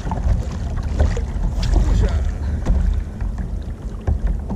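Wind buffeting the microphone over water slapping and splashing against a fishing kayak's hull on the open sea.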